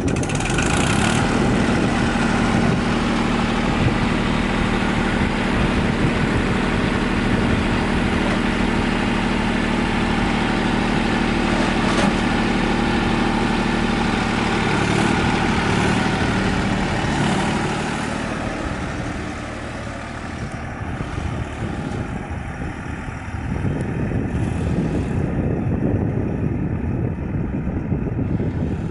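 Diesel tractor engine running steadily; its sound changes and eases off about two-thirds of the way through, then picks up again near the end.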